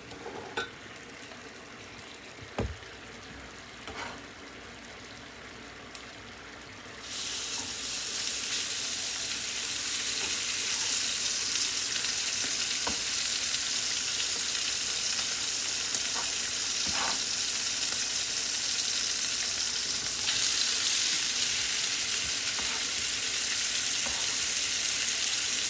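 Food placed into hot olive oil in a frying pan sets off a loud, steady sizzle that starts suddenly about seven seconds in, after a few light knocks of utensils on the pan.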